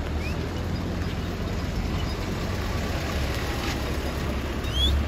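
Vehicle engine running with a steady low rumble as a 4x4 jeep creeps slowly past; a few short, high, rising chirps sound over it, one just after the start and one near the end.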